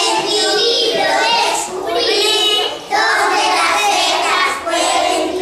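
Young children singing a song together, phrase by phrase with brief breaths between lines.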